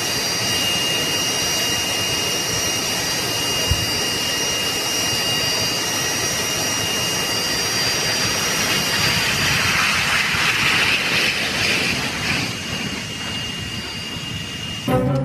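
Jet airliner engines running with a steady roar and several constant high-pitched whines, swelling into a louder rush around ten to twelve seconds in, before the sound cuts off abruptly near the end.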